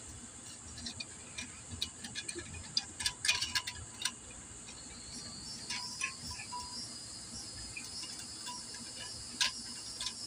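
Scattered light metallic clicks and taps as the cam chain and small metal engine parts are handled around the cylinder studs of a GY6 scooter engine, most of them a few seconds in and one more near the end. A steady high-pitched chirring runs underneath.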